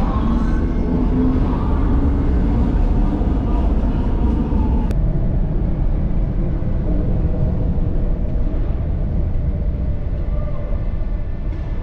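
Steady low rumble of a vehicle driving through city traffic along a street under an elevated rail line.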